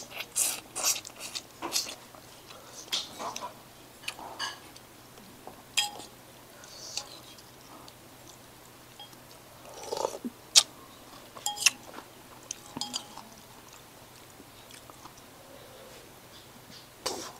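Close chewing and mouth noises of a person eating noodles, picked up on a lapel microphone, busiest in the first few seconds. A few short clinks of a metal spoon against the bowl come about ten to twelve seconds in.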